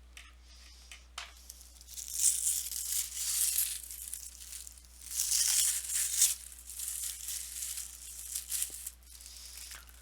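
Packaging around paper pads being torn open and crinkled in bursts of rustling, starting about two seconds in and loudest around the middle.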